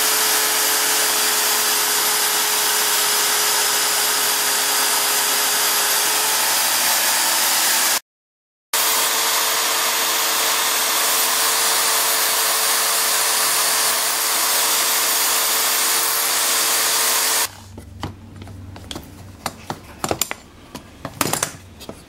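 Electric drill running steadily with a motor whine, its bit boring into plywood; the sound drops out briefly about eight seconds in and resumes. It stops a few seconds before the end, leaving light clicks and knocks of the wood being handled.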